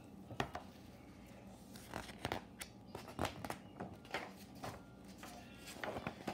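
Pages of a hardcover picture book being turned by hand: stiff paper rustling, with a series of short crackles and flaps as each page turns over.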